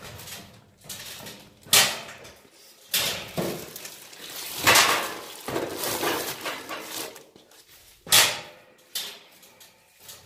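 Bags and their contents being handled and moved: rustling with several sharp, loud bangs or thuds, about four in all.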